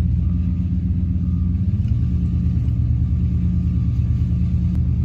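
Pickup truck engine and road noise heard inside the cab while driving: a steady low rumble, with the engine note shifting slightly about two seconds in.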